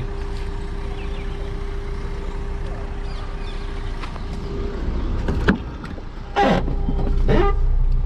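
Maruti Suzuki Swift Dzire's 1.3-litre four-cylinder diesel engine idling steadily, a low rumble with a constant hum over it. In the second half come a few knocks as the car door is opened and shut.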